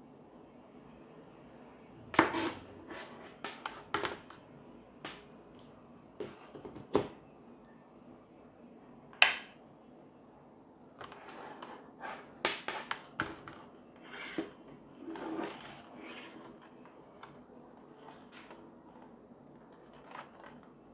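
Plastic power cord, plug and connector lead of a T5 LED tube light being handled: scattered clicks, knocks and light rattles of plastic on a hard surface, with a sharp click about nine seconds in.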